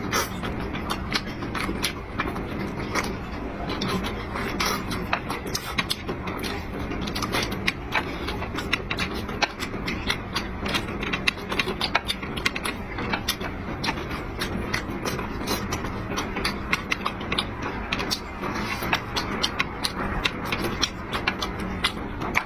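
Eating sounds: a steady run of small sharp clicks and taps from chopsticks and dishes, over a constant background hum.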